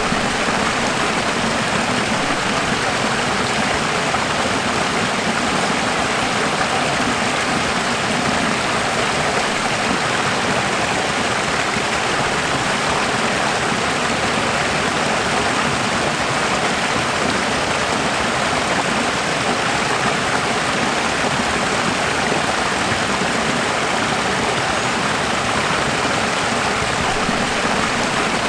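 Running water, a steady, even rushing that does not change.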